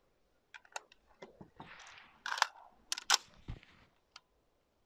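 An AR-15 being handled and readied to fire: a series of metallic clicks and clacks, with a short scraping slide about two seconds in and two sharp clacks around the three-second mark.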